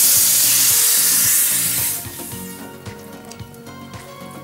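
Food tipped into a hot pan sizzling loudly for about two seconds, then dying down to a quieter sizzle with a few light clinks.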